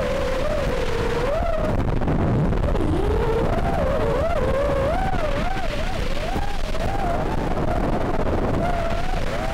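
Racing quadcopter's Emax RS2205-S 2600kv motors spinning DAL Cyclone 5046 three-blade props, heard from the onboard microphone: a whine whose pitch rises and falls quickly with the throttle, over a steady rumble of wind and prop wash.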